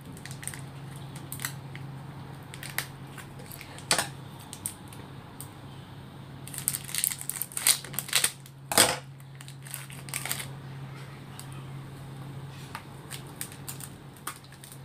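Scissors snipping and a plastic Sky Flakes cracker wrapper crinkling, with scattered sharp clicks and a dense crackly stretch about seven to nine seconds in, over a steady low hum.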